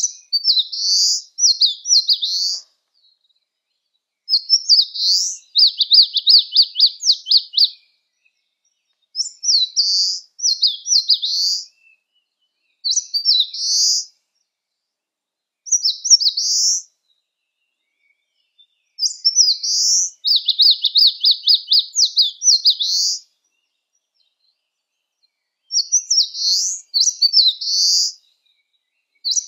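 Eastern crowned warbler singing: short, high, quick phrases repeated every few seconds, about seven in all, two of them running into a fast trill.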